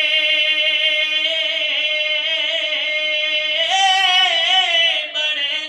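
A man singing a naat unaccompanied, holding one long note that wavers in melismatic ornaments. The pitch steps up about two-thirds of the way through, and the note breaks into shorter notes near the end.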